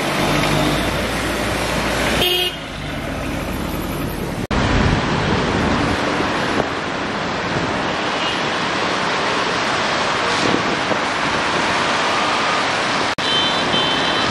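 Street traffic with passing vehicles. Short horn honks sound about two seconds in and again near the end.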